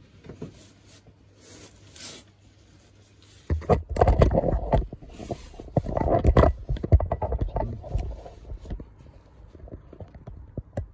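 A cloth rag wiping around an oil drain plug, faintly. About three and a half seconds in, loud, irregular rubbing and knocking from the camera phone being handled and moved begins, then eases near the end.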